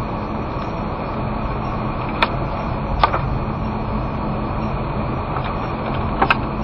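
Car driving, heard from inside the cabin: steady engine and road noise, with a few sharp clicks or knocks, about two and three seconds in and a quick pair near the end.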